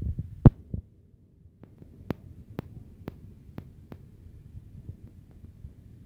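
Low, uneven rumbling with a series of sharp taps or clicks. The loudest tap comes about half a second in, then they come roughly two a second for a couple of seconds.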